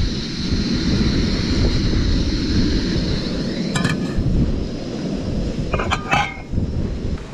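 Wind buffeting the microphone, over a high steady hiss of gas from a portable camping burner that fades about halfway through. A cooking pot's metal bail handle clinks as the pot is set on the burner, a few clinks about four seconds in and again about six seconds in.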